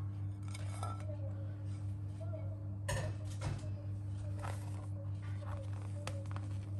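Ceramic plates being handled and set down on a countertop, with a couple of clinks about three seconds in, over a steady low hum.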